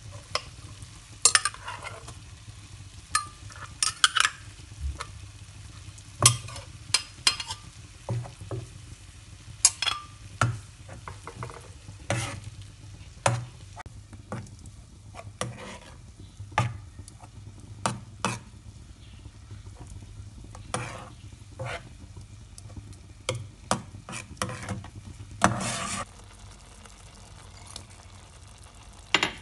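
A metal spoon stirring minced pork through simmering coconut milk in a nonstick saucepan: irregular clicks, knocks and scrapes of the spoon against the pan over a low, steady bubbling hiss.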